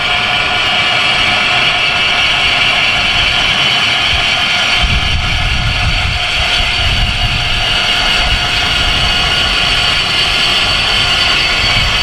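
An electric swing-gate-opener linear actuator runs steadily with a high motor whine as it lowers a homemade pickup-truck lift platform. A low rumble joins about five seconds in.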